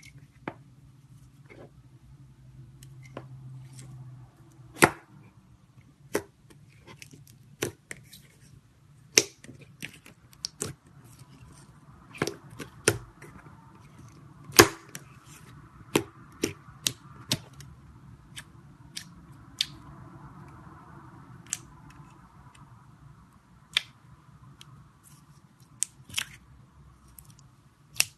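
Clear slime being handled, giving sharp, irregular pops and clicks, several of them loud, over a faint steady hum.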